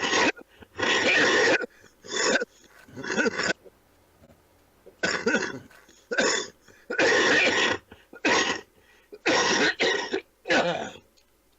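A man coughing in a long fit: about a dozen coughs in quick clusters, with a pause of about a second and a half near the middle.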